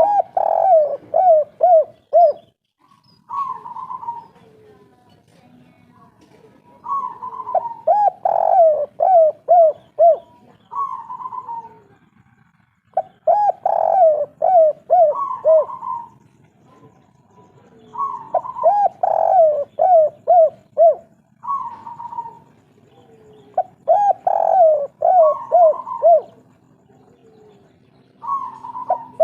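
Spotted doves (derkuku) cooing the 'kuk 3' song. Each phrase is a higher opening note followed by a run of short lower coos, repeated about every five seconds, and the birds' phrases overlap at times.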